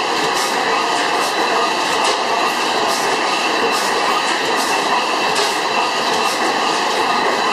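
A 300 hp Miller Improved stationary gas engine running: a steady mechanical clatter from the crank and rods, with a faint regular knock about once a second.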